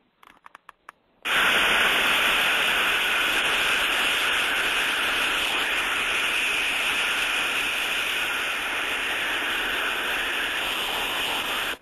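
Inverted bucket steam trap failed open and blowing live steam through its orifice, heard through an ultrasonic detector. A steady, continuous hiss with no on-off cycling starts abruptly about a second in.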